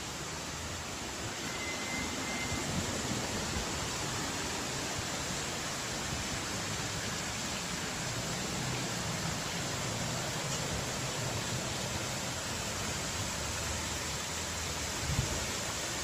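Steady rushing hiss of outdoor ambience, with a faint low rumble underneath and a brief faint high tone about two seconds in.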